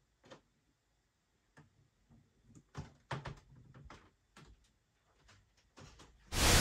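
Faint, irregular light ticks and clicks from a flat-mounted bicycle wheel carrying rim magnets as it coasts slowly around its axle, slowing to a stop. Near the end a sudden loud rushing noise cuts in.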